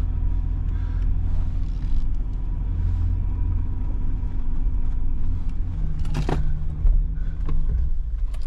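Jeep Wrangler running and driving on dirt, a steady low engine and drivetrain rumble heard inside the cabin, with a brief knock about six seconds in.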